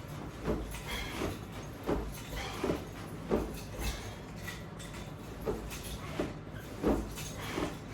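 Irregular soft knocks and clinks, roughly one a second, from exercising with resistance bands and their clip-on strap hardware.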